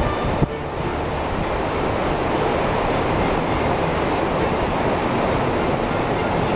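A cruise ship's churning wake in rough sea, a steady rush of water, with wind buffeting the microphone.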